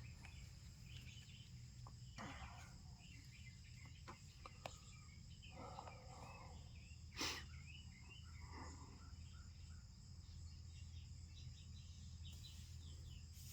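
Faint steady chirring of crickets or other insects, with a few soft handling clicks and one sharper click about seven seconds in.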